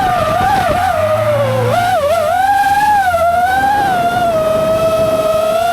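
FPV racing drone's motors and propellers whining, the pitch wavering up and down as the throttle changes, with a lower car engine note briefly underneath about a second in.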